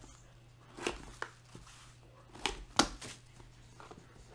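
Trading cards and packs being handled on a table: a handful of short taps and slaps, the loudest about two-thirds of the way through, over a low steady hum.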